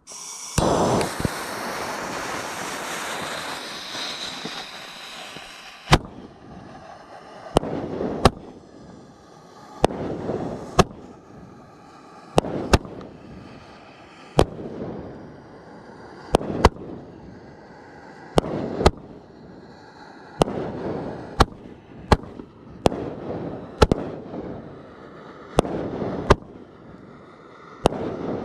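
Steady hiss for about six seconds as the fuse is lit with a torch lighter, then a consumer fireworks cake firing: sharp shots about once a second, each with a short rumbling tail as its shell breaks overhead.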